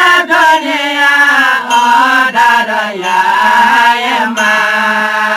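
Jyapu singing group singing a Newari devotional folk song in a chant-like line, with harmonium accompaniment; the melody settles onto a long held note in the second half.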